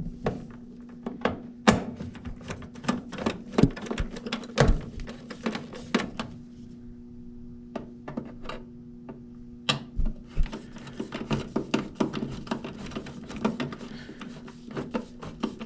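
Irregular knocks, clunks and rubbing from handling work on the furnace cabinet, with a steady low hum underneath.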